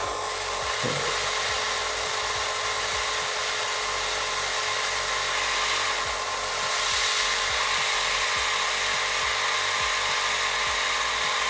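Airbrush spraying thinned acrylic paint: a steady hiss of air, a little louder about seven seconds in.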